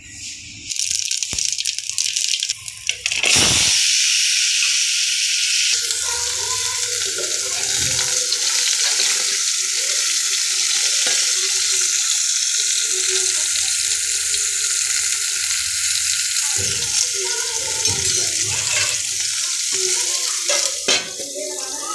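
Raw mango slices frying in hot oil in an aluminium pot. A loud, steady sizzle starts suddenly a few seconds in, with a metal spoon scraping and stirring against the pot.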